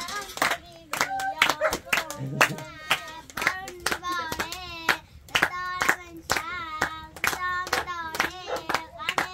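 A voice singing an ornamented melody while hands clap steadily in time, about two claps a second.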